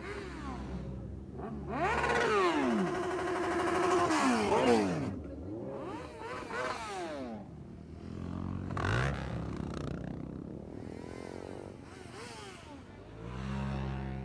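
A stream of motorcycles, sport bikes and dirt bikes, riding past one after another, their engine notes revving and sliding up and down in pitch as each goes by. The loudest passes come a few seconds in. A steadier, lower engine note comes in near the end.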